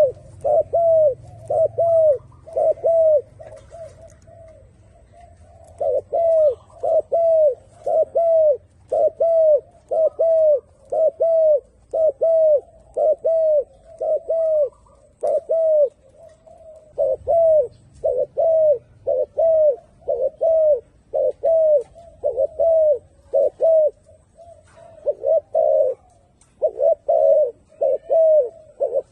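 Turtledove cooing, a long run of short low coos repeated about one and a half times a second, broken by a couple of brief pauses.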